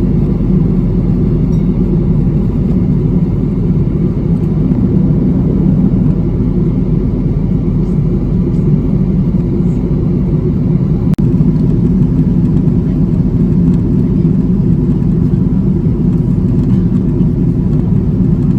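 Steady drone of an airliner's cabin noise: engines and rushing air, a constant low rumble, with one split-second dropout about eleven seconds in.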